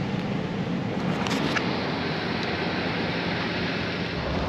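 Steady road and engine noise inside a moving pickup truck's cab: an even rushing hiss over a low, steady hum.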